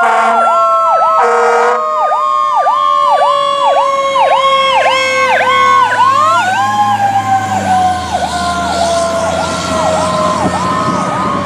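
Fire truck sirens on a 2007 Pierce Dash aerial tower: an electronic siren yelps fast, about two rises and falls a second. Under it, a mechanical siren's tone slowly winds down in pitch, is spun back up about six seconds in, then winds down again. A short air-horn blast sounds about a second in, and the truck's diesel engine rumbles as it pulls away.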